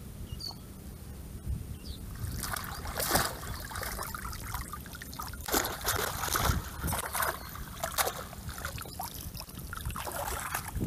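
Water splashing, sloshing and trickling as bamboo box fish traps are pulled up out of shallow paddy water and water drains out through the slats. The splashing starts about two seconds in and comes in irregular surges.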